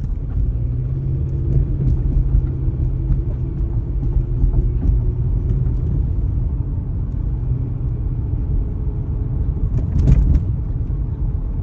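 2004 Toyota Corolla engine running as the car pulls away from a stop, heard from inside the cabin, with a brief louder thump about ten seconds in. The owner says it starts to shake and knock like this whenever it takes off.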